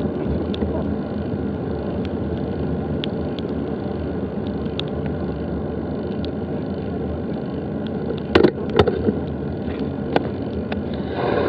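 Steady rushing wind and tyre noise of a mountain bike rolling along a dirt trail, with a few sharp rattling knocks about eight seconds in.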